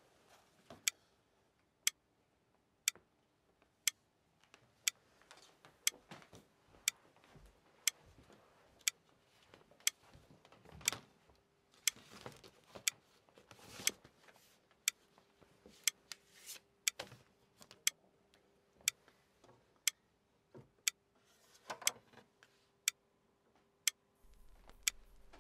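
A clock ticking steadily, about once a second, with soft rustling as record sleeves are handled between the ticks. A low hum comes in near the end as the record player's tonearm is moved.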